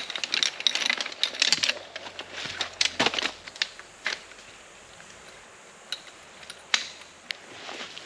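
Footsteps crunching and crackling on the rainforest floor: quick, dense steps for the first couple of seconds, a few more about three seconds in, then only scattered steps after a quieter stretch.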